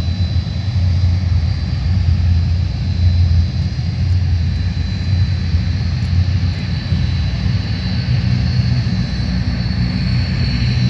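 Antonov An-12's four turboprop engines running as the aircraft taxis: a steady low drone with a thin, steady high whine above it.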